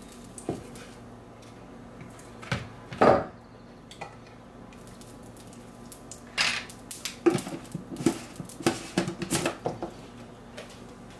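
Kitchen utensils clattering: a metal spoon and dishes knocking and clinking. There are a few separate knocks in the first three seconds, the loudest about three seconds in, then a quick run of small clicks and taps.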